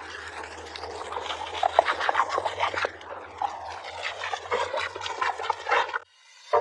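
Garden hose spray nozzle shooting a jet of water that splashes against a dog snapping at it: a dense, rough hiss of spray with many small spattering clicks. It cuts off suddenly shortly before the end.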